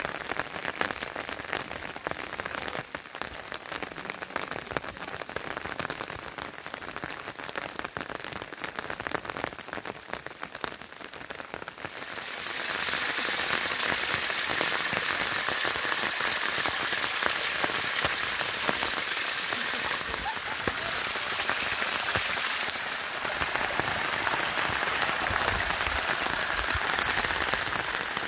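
Rain pattering on wet rock and gravel. About twelve seconds in, a louder steady rush of rainwater spilling over a rock ledge and running down a rocky gully takes over.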